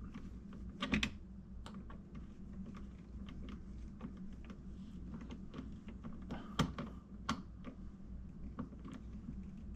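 Irregular light clicks and taps of hands and tools working on the plastic drain and disposal fittings under a kitchen sink, over a low steady hum.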